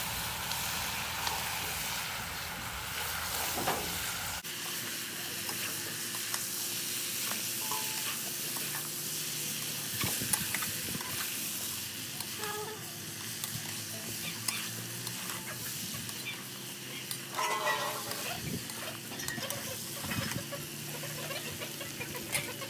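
Chicken pieces sizzling in a black iron kadai while a flat metal spatula stirs and scrapes them around the pan, with a steady hiss and scattered scrapes and knocks.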